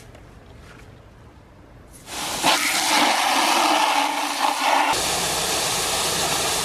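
Garden hose spray nozzle shooting a strong jet of water into a plastic bucket, a steady hissing splash that starts about two seconds in.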